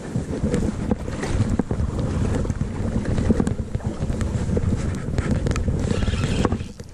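Wind buffeting the microphone, a dense low rumble, with handling rustle and scattered clicks from the rod and spinning reel being worked right beside it; the rumble drops away sharply near the end.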